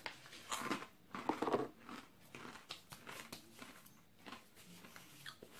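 A person chewing a crunchy puffed-rice shrimp cracker with the mouth close to the microphone: irregular crunches, louder and closer together in the first couple of seconds, then fewer and fainter.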